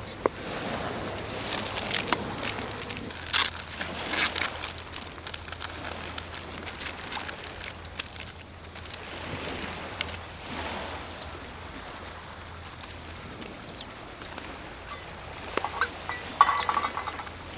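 Crinkling and rustling of a small packet being handled, with a cluster of sharp crackles a couple of seconds in and quieter rustles after. A light clink of metal on the table near the end.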